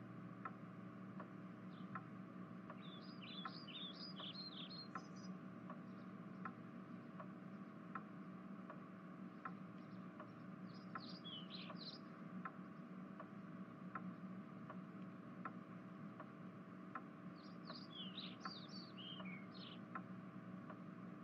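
Faint bird chirps in three short bouts over a steady low hum, with a regular light tick about every three-quarters of a second.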